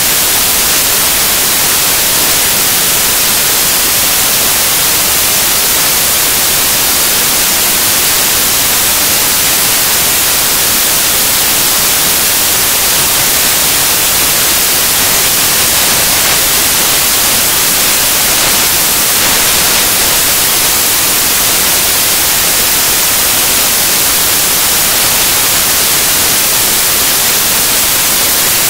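Loud, steady static hiss, even and unbroken, strongest in the treble, with no other sound heard through it.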